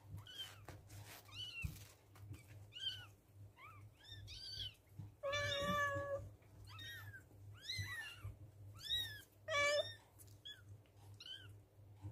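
Newborn kittens mewing: about a dozen thin, high calls that rise and fall in pitch, with a longer, louder cry about five seconds in.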